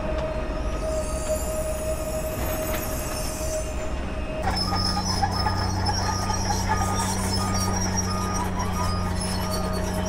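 A Pesa Elf electric multiple unit gives a steady electrical whine. About four seconds in it gives way to the steady low hum of diesel construction machinery, with a short high beep repeating about twice a second.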